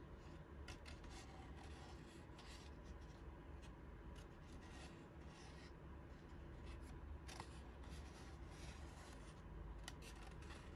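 Faint rustling and rubbing of a paper crown being handled, in short scattered strokes over low room tone.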